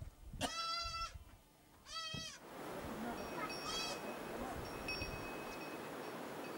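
Bleating livestock: two short, wavering bleats, about half a second in and about two seconds in, followed by a steady hiss of background noise.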